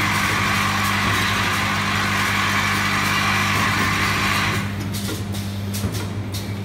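Rotary bottle-unscrambling machine running with a steady electric hum and a hiss that cuts off about four and a half seconds in. After that come scattered light clicks and clacks of the plastic bottle parts.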